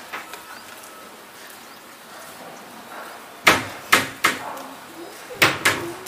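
Five sharp knocks over the steady hiss of falling rain: three in quick succession from about halfway through, then two more close together near the end.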